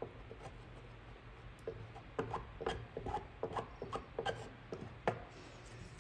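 Hot plastic-welding iron tip rubbing and scraping over cracked plastic bodywork, smoothing the melted plastic down. It makes a run of short, irregular scrapes and taps from about two seconds in, over a low steady hum.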